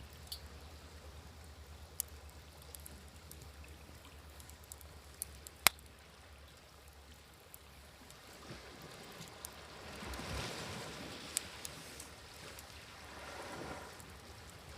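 Campfire crackling with scattered sharp pops, the loudest about halfway through, over waves washing ashore that swell up twice in the second half.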